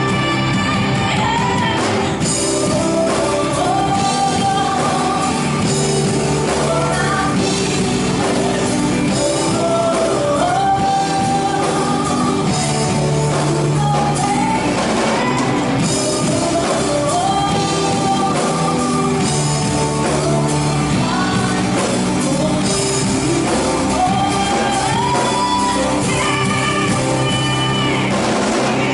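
Rock-style band music: a singer over drums and guitar, the melody moving in phrases of a couple of seconds, with a steady level throughout.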